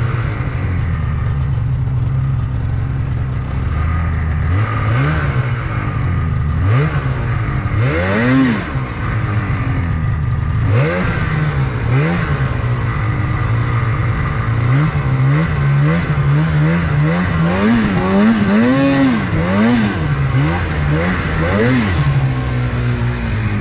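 Polaris two-stroke mountain snowmobile engine revved up and down over and over in short throttle bursts, its pitch rising and falling every second or two as the sled is worked through deep snow.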